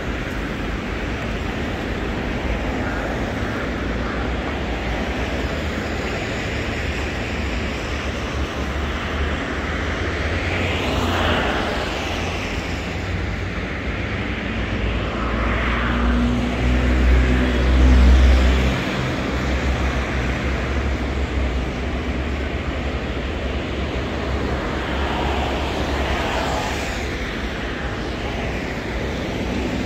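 City street traffic: a continuous low rumble with vehicles passing at intervals, and a louder, deeper engine pass about two-thirds of the way through.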